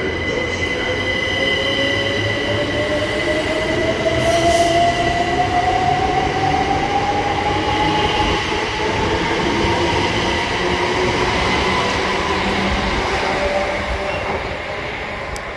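Electric multiple-unit train pulling away from a station platform, its traction motors whining in a tone that rises steadily as it gathers speed, over a steady high whine and the rumble of the wheels.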